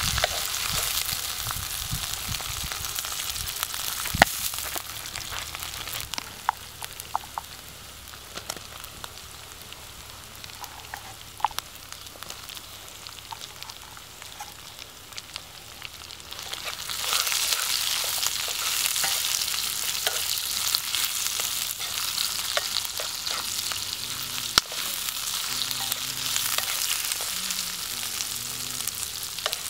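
Green chillies and sliced onions frying in hot oil in a non-stick wok over a wood fire, with a steady sizzle and the clicks and scrapes of a wooden spatula stirring against the pan. The sizzle quietens about six seconds in and grows louder again just past halfway.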